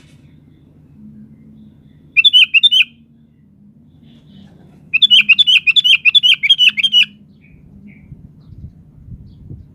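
Sooty-headed bulbul (kutilang) singing: a short run of quick, repeated chirping notes about two seconds in, then a longer run of about a dozen from about five to seven seconds, over a faint low hum.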